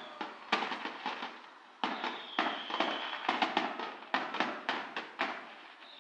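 Fireworks display: a rapid run of sharp cracks and pops, with a high whistle held for about a second some two seconds in.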